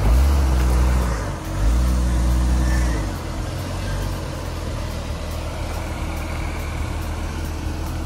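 Jeep Cherokee XJ engine under throttle as the Jeep crawls through a dirt rut: two louder surges of revs in the first three seconds, then steady running at low revs.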